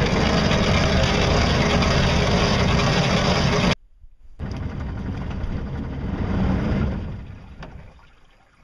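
Homemade solar-electric boat under way: its motor running, with water rushing along the hull and wind buffeting the microphone. The sound cuts off suddenly about four seconds in, then a similar rush starts again and fades away over the last couple of seconds.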